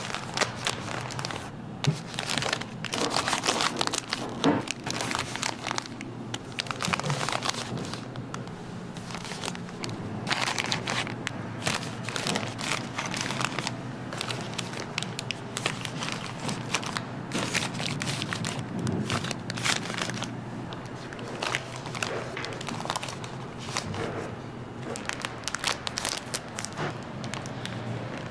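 Plastic wrappers of individually packed rice cakes crinkling and rustling as they are handled and laid out, in irregular crackles, over a faint low steady hum.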